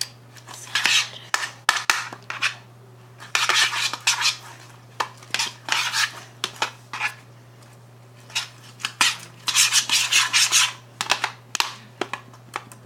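A spoon stirring and scraping sticky white-glue slime around a bowl, in irregular rasping scrapes with sharp clicks where the spoon knocks the bowl. The slime is still sticky and not yet set.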